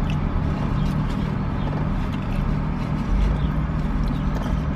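Steady low hum of a car idling, heard from inside the cabin, with faint scattered crunches and clicks of fries being eaten.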